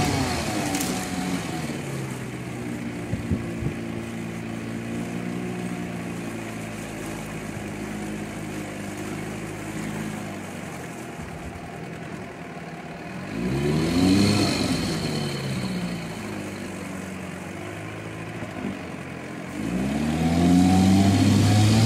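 Evinrude 4.5 hp two-stroke outboard motor running in a test barrel: throttled back to a steady idle early on, revved up briefly about two-thirds of the way through, then revved up again near the end.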